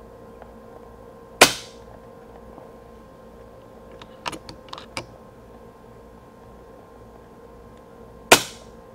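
FX Impact X PCP air rifle firing twice, about seven seconds apart, each shot a sharp crack with a short echo. A cluster of quieter clicks comes between the two shots.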